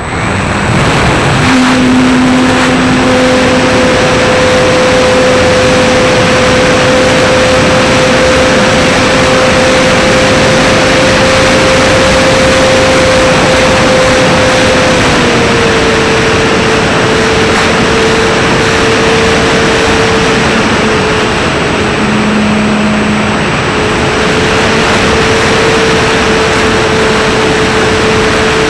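RC model plane's motor and propeller running steadily in flight, heard from a camera on board, with a steady whine that drops a little in pitch about halfway through, under heavy wind rush on the microphone.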